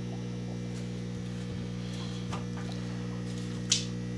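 Steady low electrical hum, a mains-type buzz made of several stacked tones, with a few faint clicks and one sharper tick about three and a half seconds in.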